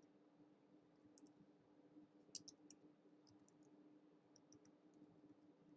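Faint, scattered clicks of computer keyboard keys being typed, over a low steady hum.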